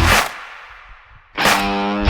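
Background rock music: a chord and drum hit die away, then a new loud chord strikes with drums about one and a half seconds in.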